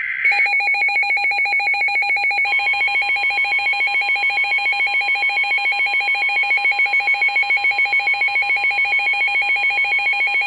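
Emergency Alert System attention signal: the tail of a screechy digital data burst, then a fast-pulsing, ringing electronic alert tone. About two and a half seconds in, a steady single-pitch tone joins it.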